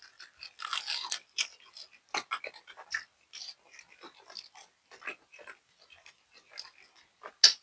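A person biting into and chewing a fried chicken wing: irregular wet mouth clicks and smacks, with a sharp louder click near the end.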